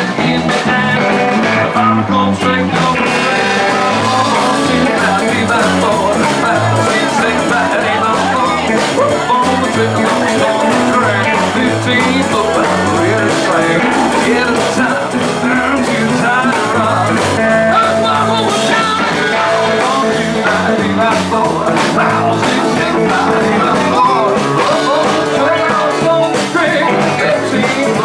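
Live rockabilly band playing: a male lead voice sings into the microphone over electric guitar and a drum kit.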